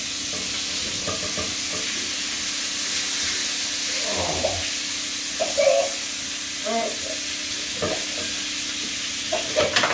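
Chicken frying in hot oil in a frying pan, a steady sizzle, to seal the outside of the meat.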